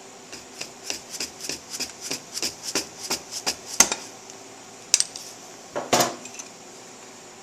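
Light metallic clicks from hand tools and parts being worked on a motorcycle's intake, coming about three to four a second for a few seconds, then a sharp click and a louder clatter of metal parts about a second later.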